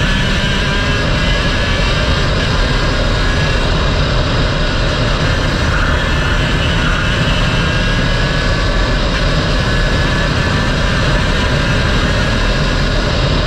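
Go-kart engine running at speed, its pitch rising and falling through the corners, under heavy wind noise on the onboard microphone.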